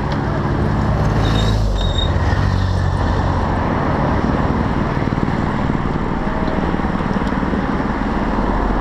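Team support cars driving past close by; one engine's pitch drops as it goes by about two seconds in, over steady rushing road noise.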